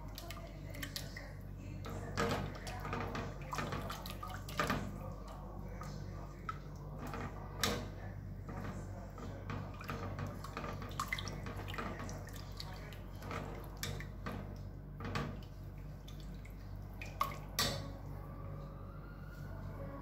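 Silicone spatula stirring and scraping thick white sauce in a stainless steel saucepan, with wet squelching and several sharp knocks of the spatula against the pan. A steady low hum runs underneath.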